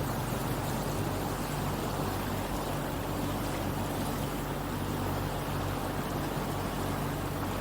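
Boat engine running steadily while under way, a constant low hum with an even rushing noise over it.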